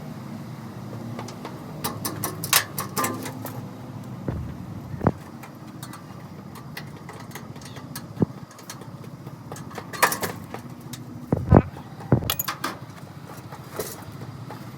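Scattered knocks and clicks of hand work on a truck in a workshop, a few of them sharp and loud, over a steady low background hum.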